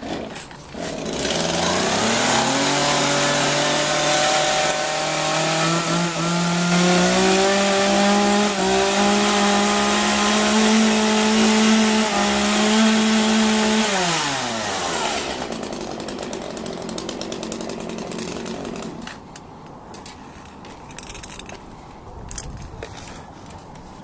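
Chainsaw running at high revs for about thirteen seconds, its pitch climbing gradually, then dropping back as the throttle is released, idling lower and stopping about nineteen seconds in; a few faint knocks follow.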